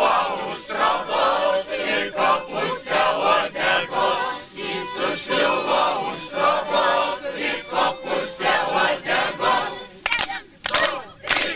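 A group of men's and women's voices singing a folk round-dance song together, in a steady even rhythm, as they dance in a ring. A few sharp loud sounds come near the end.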